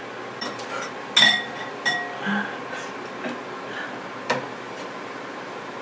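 Kitchen utensils and containers clinking as sauce ingredients are added and mixed: two ringing clinks about a second in and near two seconds, then a sharp knock a little past four seconds.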